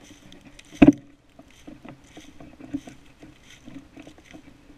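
Footsteps crunching and rustling through dry fallen leaves at a steady walking pace, with one sharp knock about a second in.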